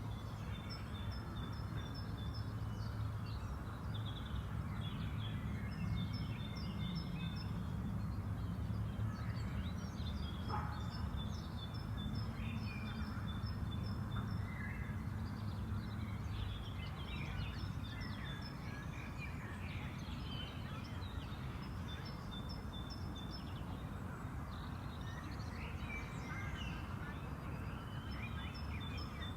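Songbirds singing, several at once, with repeated runs of short high chirps and varied trills, over a steady low rumble.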